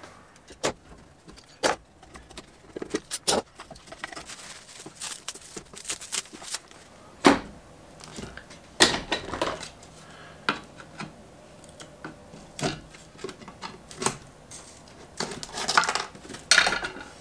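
Irregular sharp clicks and clatters of spring clamps being released and set down against one another. This is followed by short scraping and picking sounds as dried polyurethane glue squeeze-out is chipped off the laminated wooden hoop.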